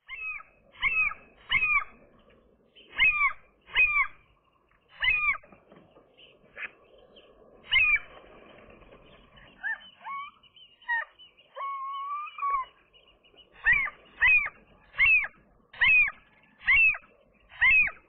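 A gull calling over and over: short, cat-like cries that rise then fall, about one a second. Softer scattered calls and one longer, level call come in the middle.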